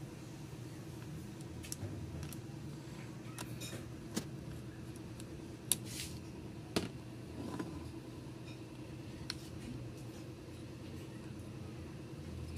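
Scattered light clicks and taps of small parts being handled while working on an old distributor, over a steady low hum.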